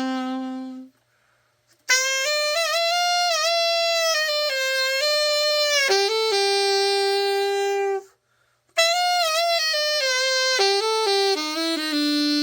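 Solo alto saxophone, a copy of a Selmer Super Action 2, playing a slow melody with vibrato, played after a full overhaul. A phrase ends about a second in, a second runs from about two to eight seconds, and a third begins just before nine seconds, with short silent breaths between.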